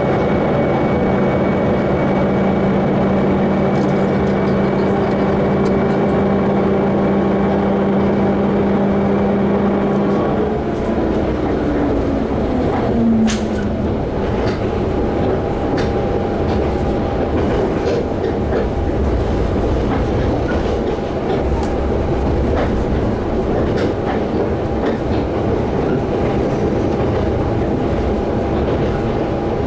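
Diesel railcar of the Tsugaru Railway running along the line, heard from inside the train. Its engine drone holds steady, then slides down in pitch and fades about ten seconds in, and the train rolls on with a steady wheel-and-rail rumble and scattered clicks from the track.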